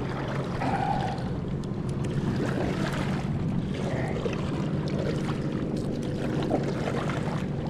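Water sloshing and splashing around a kayak hull, with a steady low motor hum underneath.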